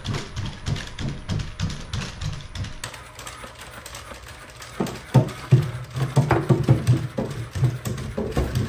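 Quadruped robot's feet tapping and knocking on wooden stairs in quick, irregular steps. The tapping goes quieter from about three seconds in, then turns into louder, heavier footfalls from about five seconds in as the robot climbs under its default, noisier walking controller.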